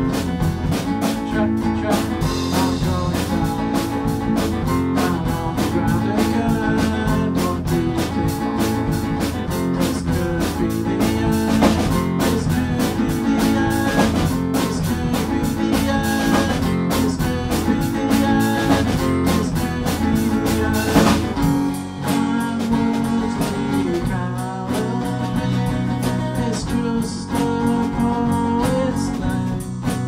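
A rock band playing live: drum kit, electric bass and strummed guitar together in a steady groove. About two-thirds of the way through, the drumming thins out, leaving bass and guitar to the fore.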